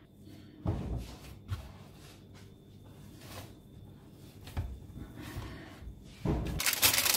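Quiet hand-working of a soft dough with a few faint knocks, then, about six seconds in, loud crinkling of baking paper.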